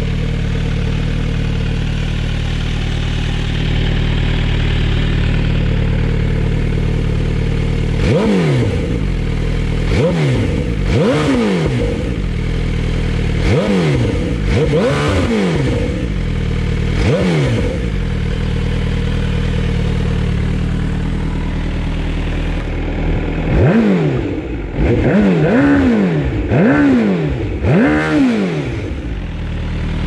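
MV Agusta Brutale 1090RR's inline-four engine, breathing through an SC Project carbon slip-on silencer, idles steadily and is then blipped repeatedly from about eight seconds in, each rev shooting up in pitch and dropping straight back to idle. After a short idle comes a quicker burst of five blips near the end.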